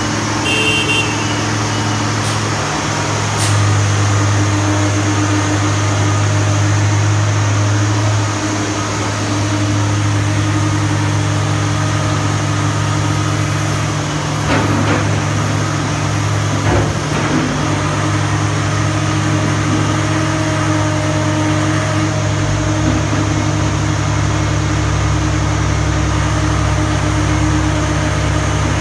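Komatsu PC300LC excavator's diesel engine running steadily with a deep, even hum, with a couple of short knocks about halfway through.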